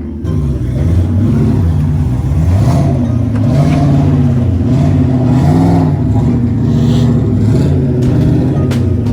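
Mustang Shelby GT500's supercharged V8 being revved over and over in short blips. The pitch climbs and falls back about every second or two.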